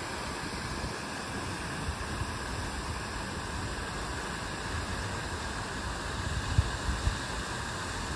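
Fountain jets splashing steadily into a pond, a constant even hiss of falling water. A couple of brief low thumps come near the end.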